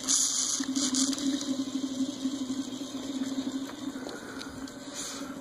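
Evergo Emperor ceiling fan motor running on low with a steady hum, while WD-40 is sprayed at its bearings in short hisses: one right at the start, another about a second in, and one near the end. The bearings are still noisy from stiffness.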